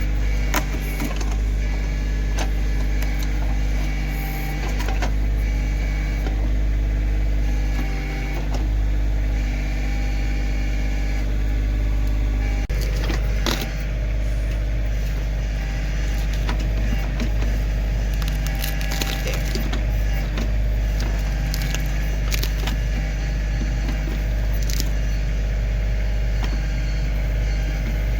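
Kioti CK2610 tractor's three-cylinder diesel engine running steadily while working the backhoe, with scattered knocks, the loudest about halfway through.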